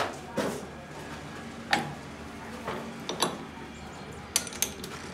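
Irregular metal clanks and clicks of a heavy steel gear housing being handled and fitted into a lathe chuck, about eight separate knocks over a faint steady hum.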